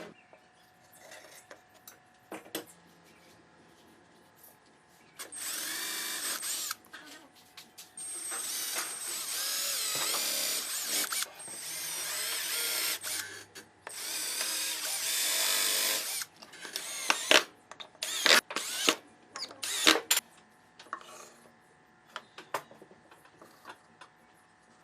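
A power tool running in four bursts of a few seconds each, its high whine wavering in pitch as it speeds up and slows, followed by a quick string of sharp clicks and knocks.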